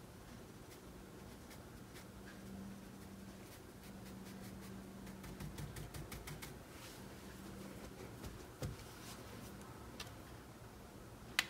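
Quiet room tone with a faint low hum that comes and goes and a few soft taps and ticks. One tap is louder, about two-thirds of the way in, and a sharp click comes just before the end.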